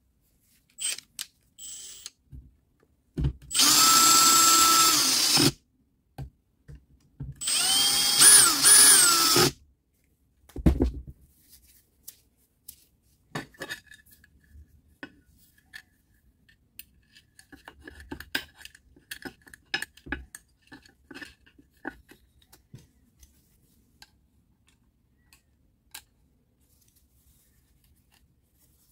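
A cordless power tool's electric motor runs in two short bursts of about two seconds each, the second rising in pitch near its end. Scattered light clicks and knocks of metal parts being handled follow.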